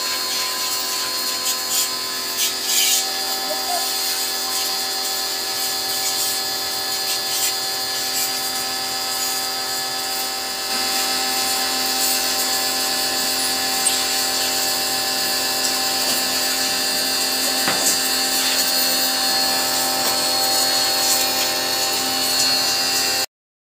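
High-pressure washer running steadily, its motor and pump whining under a hissing water jet that is sprayed onto a motorcycle's engine. It gets a little louder about halfway through and stops abruptly near the end.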